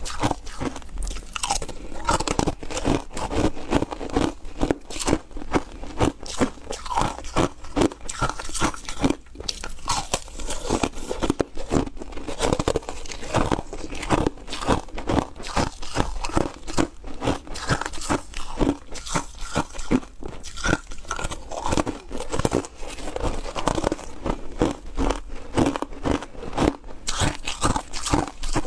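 Close-up crunching and chewing of frozen green foam ice, a steady run of crisp crunches several a second.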